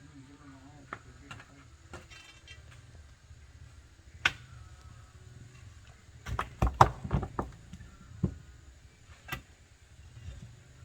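Scattered sharp knocks and clatters, with a quick run of louder knocks about six to seven seconds in, over a low steady hum.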